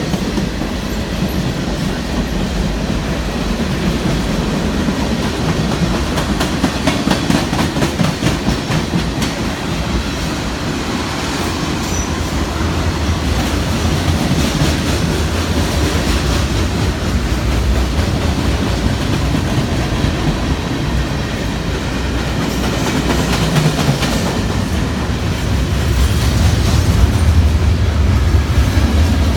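Freight cars of a long CN train rolling past, wheels clicking steadily over the rail joints in a dense rumble. The low rumble grows louder near the end.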